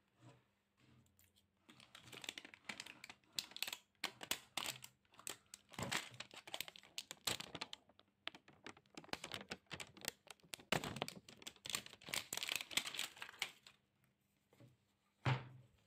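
Hands handling a cardboard perfume box tube: a run of small clicks, taps and rustles of the card being gripped and turned, with one single knock near the end.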